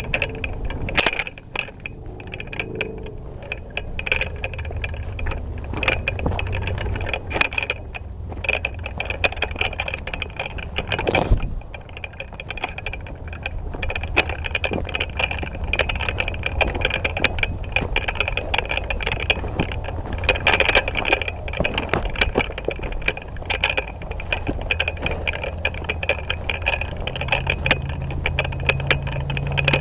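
Movement through brush recorded on a body-worn camera: leaves and twigs crunching and scraping underfoot, with many small clicks and rattles of gear and a steady low rumble of handling noise.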